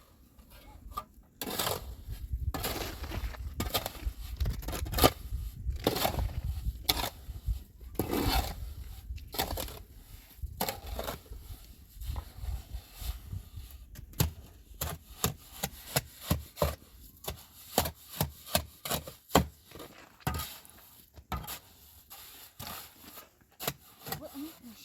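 Irregular knocks and scraping, as of wood or tools being handled, over a low rumble in the first half; in the second half the knocks come thicker and crisper.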